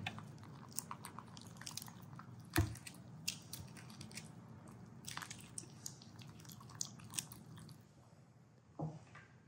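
A pet monkey chewing and biting food hurriedly: irregular wet crunches and mouth clicks, with a sharper crunch a few seconds in and another near the end.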